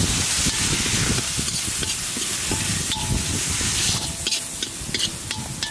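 Onion and spice masala sizzling steadily in a kadai, just wetted with a little water so the spices don't burn, while a spatula stirs and scrapes it. The sharp scrapes of the spatula on the pan come through more clearly near the end.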